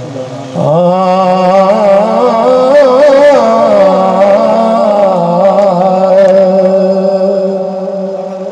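A man's voice singing a devotional Punjabi verse through a microphone and PA loudspeaker, in a long, ornamented melodic line that wavers in pitch. It starts about half a second in and fades a little near the end.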